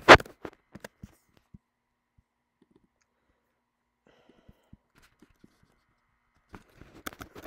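A short, loud breath out into the microphone right at the start, followed by faint scattered clicks of a computer mouse and keyboard, with a quick cluster of clicks near the end.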